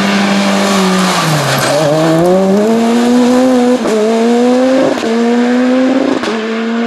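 Rally car engine lifting off, then accelerating hard up through the gears: the revs climb, drop briefly at each quick upshift about every second and a bit, and climb again. Short sharp cracks mark the shifts.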